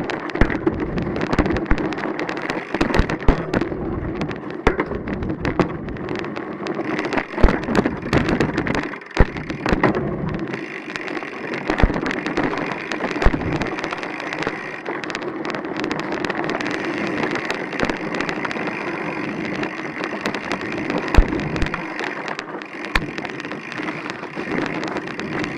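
Astrix Stryke full-suspension mountain bike riding down a dirt trail: a continuous rolling rush with frequent sharp knocks and rattles as it goes over bumps.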